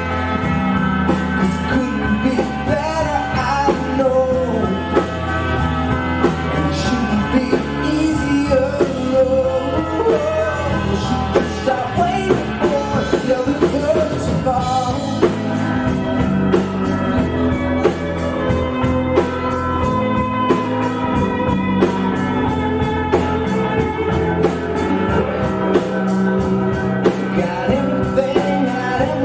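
Live rock band playing a song, with drums and bass keeping a steady beat.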